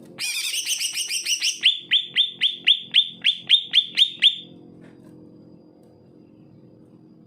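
Male green leafbird (cucak ijo) singing: a quick run of varied high notes, then a string of about a dozen sharp repeated notes, roughly four a second, which stops about halfway through. A faint steady low hum lies underneath.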